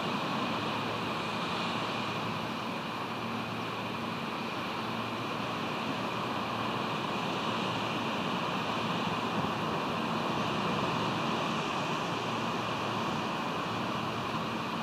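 Steady, even rush of wind and ocean surf below a cliff-top nest, with no breaks or distinct events.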